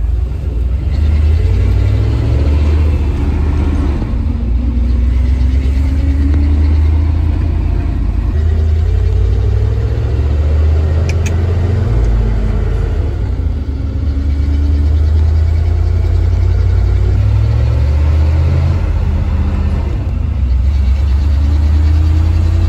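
1988 C30 wrecker truck's engine heard from inside the cab while driving: a loud, heavy low rumble, the engine note rising as it pulls through each gear and dropping at each shift.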